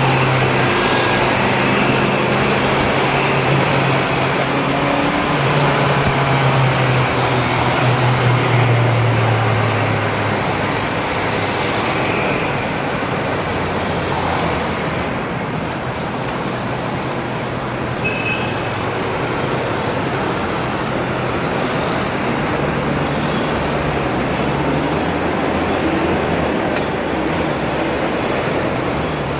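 Honda CB650F's inline-four engine running under a rider, with wind and road noise; about ten seconds in its note drops and eases as the bike slows into city traffic, leaving a steady mix of engine hum and surrounding traffic.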